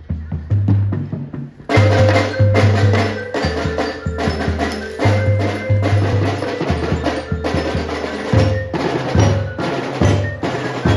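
Marching band music: drums beating out a rhythm, joined about two seconds in by the full band with mallet percussion such as glockenspiel-type bells playing the melody.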